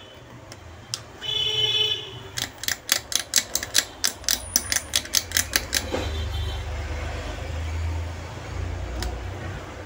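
Hobby-knife blade scraping across a TV panel circuit board to cut its copper traces: a run of quick, sharp scratching strokes, about five a second, lasting a few seconds. A brief high tone comes just before the strokes, and a low steady hum follows them.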